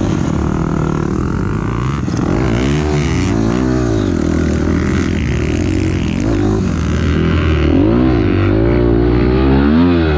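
2006 Honda CRF250R's single-cylinder four-stroke dirt bike engine pulling away and riding, its pitch rising and dropping back several times as the throttle is worked and gears change.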